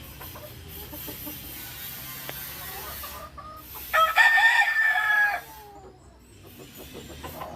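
A gamefowl rooster crowing once, about four seconds in, a loud call lasting about a second and a half.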